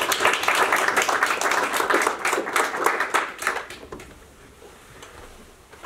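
Small audience applauding, the clapping dying away about four seconds in.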